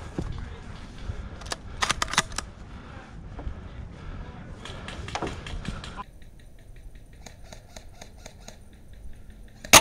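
Airsoft guns firing: a few quick clusters of sharp snaps in the first half, then near the end a single loud, sharp shot from a Tokyo Marui VSR-10 spring bolt-action sniper rifle.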